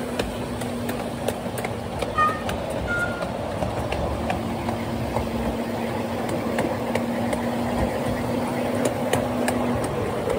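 Miniature ride-on steam train running along its track, with irregular sharp clicks, typical of wheels passing over rail joints, over a steady low hum.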